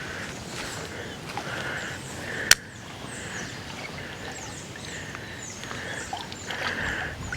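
Small birds chirping repeatedly over a steady outdoor background, with one sharp click about two and a half seconds in.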